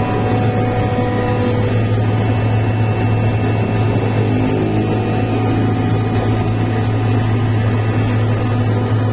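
Kaeser BSD 75 rotary screw air compressor (37 kW) running steadily at working temperature: a constant low hum with a few steady higher tones over an even rushing noise.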